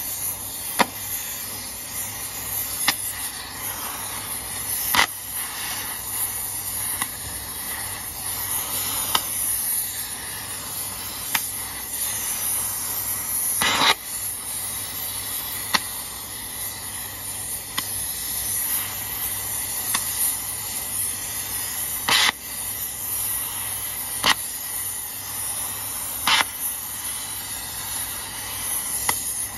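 Oxy-fuel burning torch flame hissing steadily as it heats a truck's wheel nuts to free them. Short sharp clicks come about every two seconds, with a longer gap in the middle.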